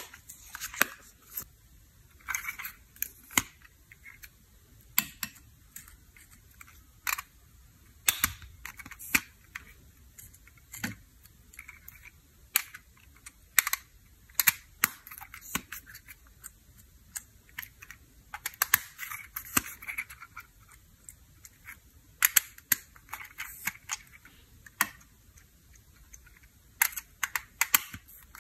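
Hard plastic makeup cases being handled and pulled apart: sharp, irregular clicks and taps, some in quick clusters, with light rubbing between them.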